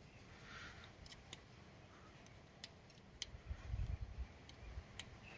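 Faint scattered light clicks, with a brief low rumble about three and a half seconds in as a forearm brushes close to the phone's microphone.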